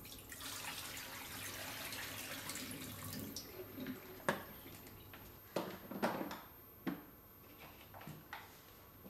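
Water running or pouring for about three seconds, followed by a few short knocks and clatters of handling.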